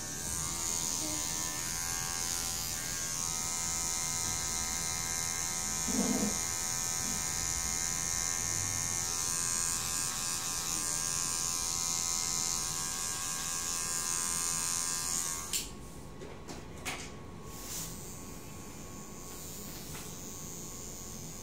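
Electric hair clippers running with a steady buzz, then switched off about fifteen seconds in, followed by a few light clicks.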